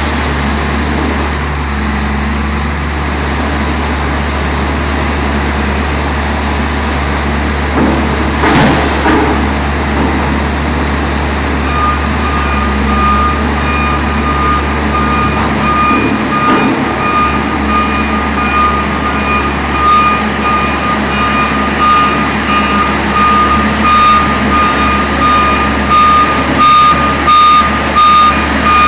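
Case wheel loader's diesel engine running with a steady low hum, with a brief loud rush about eight seconds in as the bucket load drops into the truck's box. From about twelve seconds in, a back-up alarm beeps steadily as the loader reverses away.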